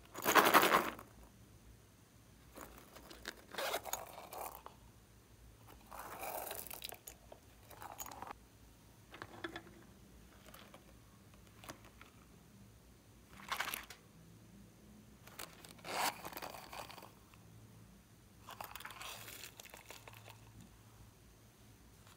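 Slime with small bits mixed in being squeezed and stretched by hand, crackling and crunching in separate bursts a second or two apart; the loudest comes about half a second in.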